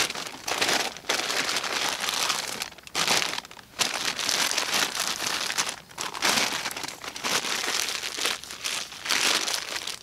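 Plastic bag crinkling and rustling continuously as it is wrapped by hand around a taped-up glass jar, with two brief lulls.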